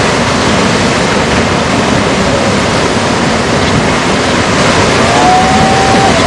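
Loud, steady rushing of water, like surf or water rushing over the microphone. A faint wavering whistle-like tone joins about five seconds in.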